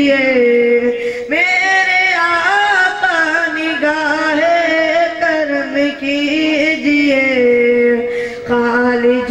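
A boy's solo voice singing an Urdu naat, drawing out long held notes with melodic turns, with a short breath about a second in and another near the end.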